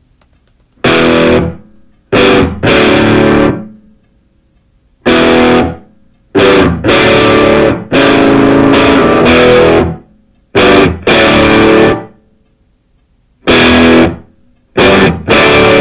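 Intro music: loud electric guitar chords with distortion, played in stop-start stabs, each starting sharply and dying away, with short silent gaps between them.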